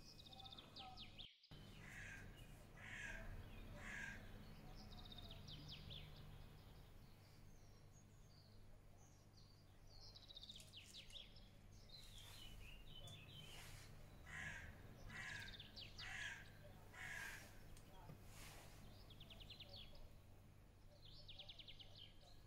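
Faint birds calling in the background: short repeated calls and quick trills, over a low steady hum.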